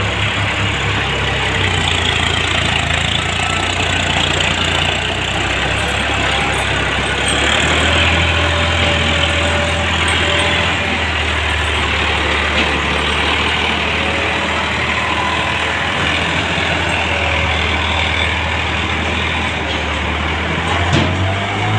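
New Holland tractor's diesel engine running steadily at low revs under load, towing two trailers heavily loaded with sugar cane.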